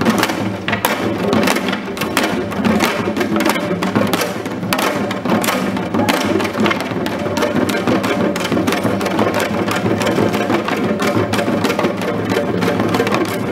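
Korean janggo hourglass drums played together with sticks in nongak farmer's music, a dense run of sharp strokes, with small sogo hand drums struck among them.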